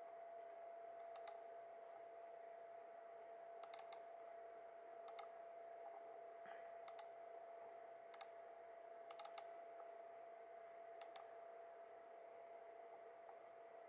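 Computer mouse clicking: scattered single and double clicks every second or two, over a faint steady electrical hum.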